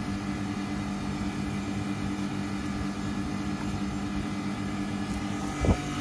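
Carrier 38QCA065 outdoor air-conditioner unit running in cooling mode: its fixed-speed compressor and condenser fan make a steady hum. A brief thump comes near the end.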